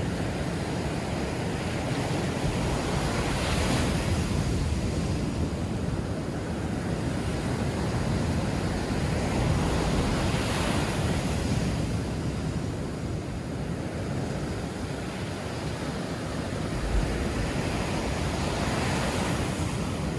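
Sea waves breaking and washing up a beach, swelling about every seven seconds, with wind buffeting the microphone.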